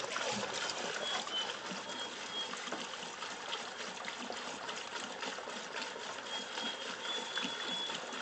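Gasoline pouring from a plastic gas can through a funnel into a snowmobile's fuel tank: a steady trickling splash.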